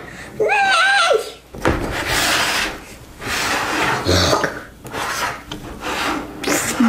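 Mouth sound effects for a toy fight: a short, wavering vocal cry about half a second in, then a run of harsh, hissing rasps of various lengths, like clash and whoosh noises.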